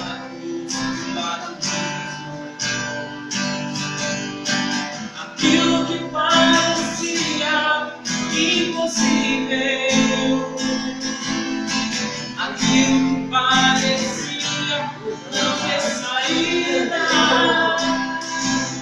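Acoustic guitar strummed in a steady rhythm, with a male voice singing along over the chords.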